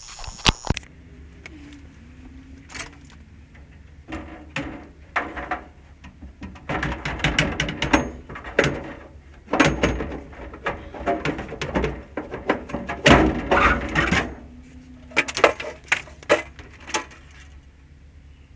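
Irregular knocking, clicking and metal clatter of hands and tools working on a gas furnace's casing and parts as it is opened up to reach the heat exchanger, over a faint low hum.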